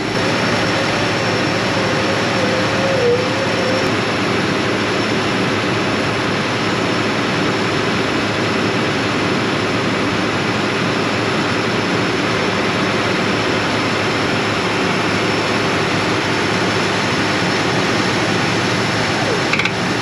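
John Deere combine running, a loud steady whir of engine and machinery heard from right beside the machine.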